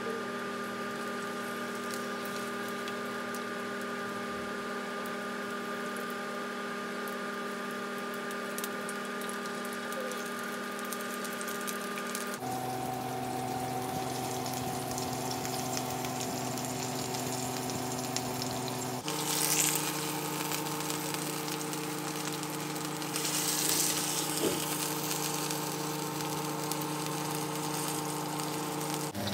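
Steak sizzling and spitting in hot oil in a frying pan, the sizzle louder in spells around twenty and twenty-four seconds in. Under it runs a steady droning chord that jumps to a different pitch about twelve seconds in and again about nineteen seconds in.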